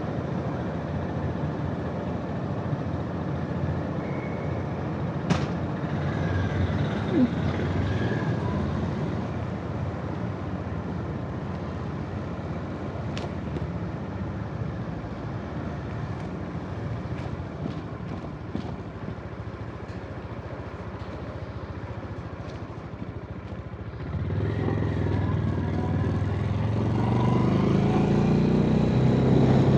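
Steady low engine rumble. About 24 seconds in, a motorcycle engine, the Honda GB350's air-cooled single, grows louder as it accelerates, its pitch rising.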